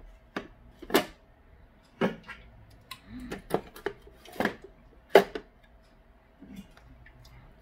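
Soda cans being set into a Chefman portable mini fridge, knocking and clinking against each other and the inside of the fridge: about half a dozen sharp knocks at uneven intervals.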